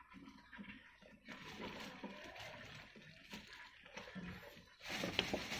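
Faint rustling of hands handling material, becoming louder and crinklier near the end.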